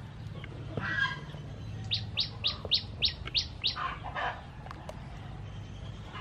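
A bird calling outdoors: a quick run of about seven high, falling notes, evenly spaced, from about two seconds in, with rougher calls shortly before and after it.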